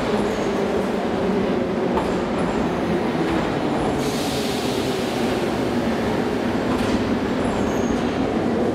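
Metro train rolling along the platform and slowing to a stop: a steady rumble of wheels and motors. About four seconds in a hiss rises and fades again a few seconds later.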